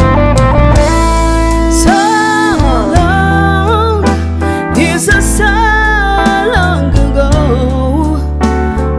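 Band playing a slow blues-rock ballad: a lead line of long, bent notes with vibrato over bass and sustained chords.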